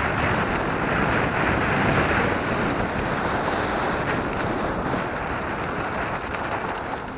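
Wind rushing over the camera microphone of an electric mountain bike riding along a gravel dirt track, with the tyres rolling on the loose surface. It is loudest over the first few seconds and eases slightly toward the end.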